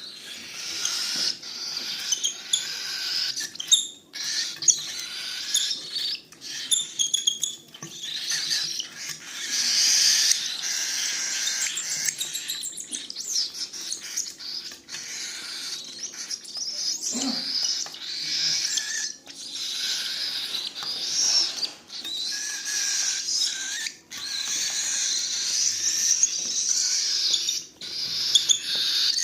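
Cockatiel chicks giving their raspy, hissing begging calls while being hand-fed, nearly continuous with short breaks, mixed with many small clicks.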